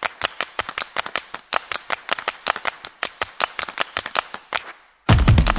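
Rapid, dry percussive claps and clicks, several a second with little bass, fading out near the end. After a brief gap, a music beat with heavy bass kicks in just before the end.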